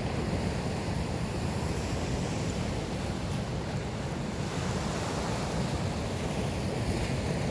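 Sea surf washing on the shore with wind buffeting the microphone: a steady rushing noise, heaviest in the low rumble.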